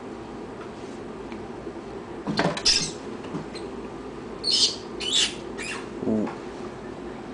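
A pet rat squealing loudly in short, high-pitched bursts as a ball python strikes and constricts it: distress cries of prey caught in the snake's coils. The squeals come about two seconds in and again in a cluster around five seconds, with a lower, falling cry near the end.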